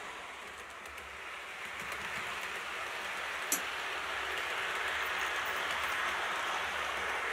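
Model electric locomotive hauling a rake of coaches along model railway track: a steady rushing rumble of wheels and motor that dips slightly and then swells as the train passes. One sharp click about three and a half seconds in.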